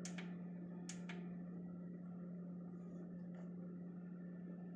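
A faint steady low hum from the running PC and its cooling fans, with a few soft clicks, two close together about a second in and one past the middle, as buttons on the RGB lighting remote are pressed.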